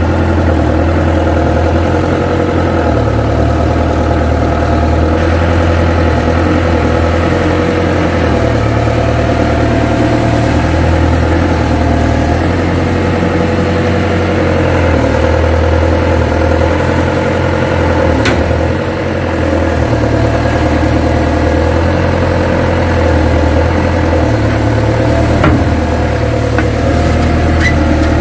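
Kato crawler excavator's diesel engine running steadily and loud, its low drone swelling and easing every few seconds as the machine is worked, with a few faint clicks.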